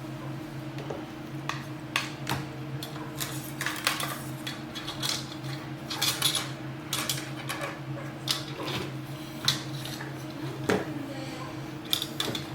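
Irregular clicks, clinks and knocks of metal clamps and PVC pipe parts being handled and fitted together, over a steady low hum.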